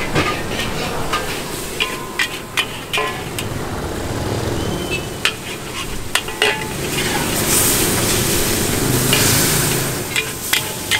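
Steel spatula scraping and clacking against a wok while noodles and squid are stir-fried and sizzle. There are sharp clacks in clusters, and the sizzle swells for a few seconds after the middle.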